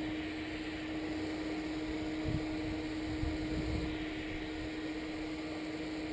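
A steady machine hum holding one constant low tone, with a few faint low knocks about two to four seconds in.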